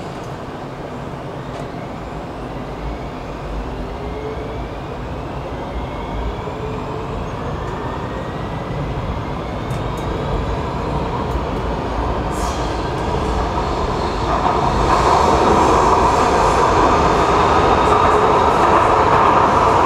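Rotterdam metro train accelerating away from a station, heard from inside the carriage. Its electric drive whines in rising glides as it gathers speed, and the wheel and running noise grows louder, with a jump in loudness about 14 seconds in.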